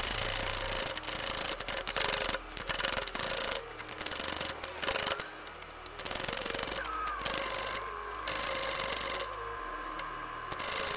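Power tool running in several bursts with short pauses, driving the threaded rod of an internal coil spring compressor so that the truck's front coil spring is squeezed down.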